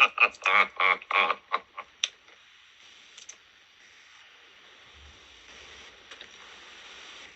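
The last of an advert's soundtrack fades out over the first two seconds, then a faint, steady hiss fills a silent gap between two adverts.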